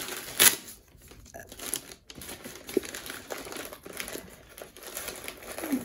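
Gift-wrapping paper crinkling and rustling as it is pulled open by hand, in irregular crackles with a louder crackle about half a second in.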